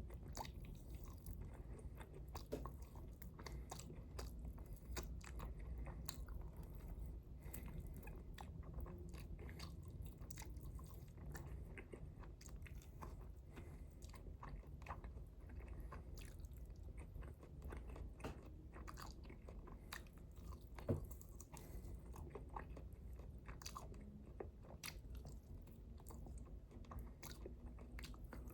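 A person chewing and biting tough, dry chicken wings, with many small crunching clicks and one sharper snap about three quarters of the way through.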